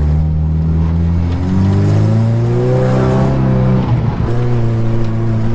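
Suzuki Samurai's small four-cylinder engine revving hard under load while driving on soft sand, its pitch climbing over the first few seconds, dipping briefly about four seconds in, then holding steady.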